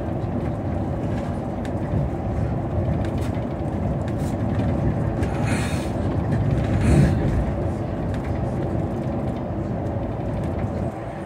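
MAN shuttle bus cruising at highway speed, heard from inside the cabin: a steady engine drone under tyre and road noise. There is a brief louder rush about two-thirds of the way through.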